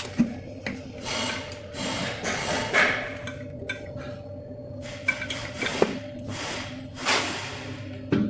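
Hand tools and metal parts of an e-bike hub motor knocking and scraping as the motor is put back together: a few sharp knocks with stretches of scraping in between.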